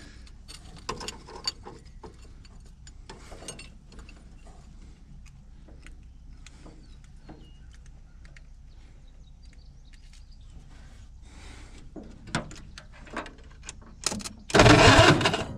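Scattered light clicks and knocks of hand work on an old truck's ignition wiring. Near the end comes a single loud burst of noise lasting about a second.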